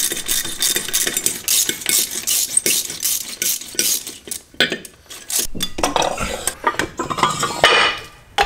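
Rapid metallic clinking and rattling, a quick run of sharp clicks, giving way to softer handling noises in the last few seconds.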